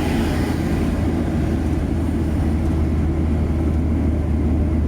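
Steady low rumble of a car on the move, heard from inside the cabin: engine and tyre noise on the road, unchanging throughout.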